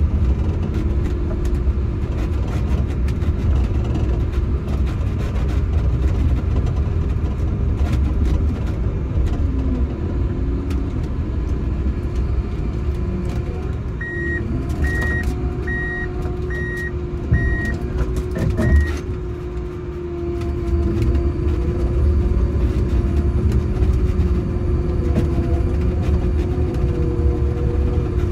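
Prinoth Bison snowcat's diesel engine running steadily under load, heard from inside the cab as it pushes snow with its blade. About halfway through, a reversing beeper sounds about twice a second for some five seconds, with a couple of sharp knocks near the end of the beeping.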